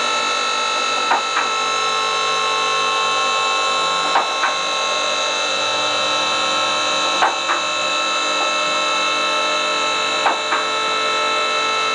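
Dunlop DL4 two-post vehicle lift's electro-hydraulic motor and pump running steadily under load as it raises a two-tonne Land Rover. Over it come pairs of sharp metallic clicks about every three seconds, the safety latches dropping over the notches in the posts as the carriages climb.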